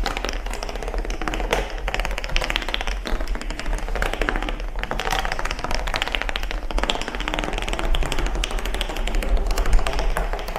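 A long chain of wooden domino blocks toppling one after another, a rapid, unbroken clatter of small clicks that runs on for the whole stretch as the chain climbs a staircase.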